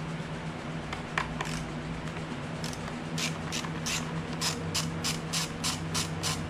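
Ratcheting driver on a motorcycle battery terminal bolt, clicking in a steady run of about three clicks a second from a little before halfway through as the bolt is backed out. A few single clicks come before it, over a steady low hum.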